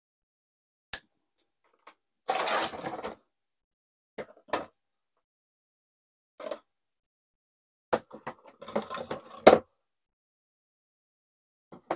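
Scattered handling sounds from repotting a bonsai: a few separate clicks and taps, and two short gritty rustling scrapes, the second ending in a sharp knock near the end.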